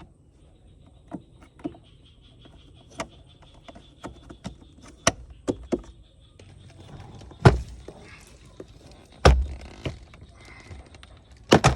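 Sharp plastic clicks and knocks from car interior trim being handled, typical of a cabin air filter cover and glovebox being refitted, with two heavier thumps about seven and a half and nine seconds in and a quick cluster of knocks near the end.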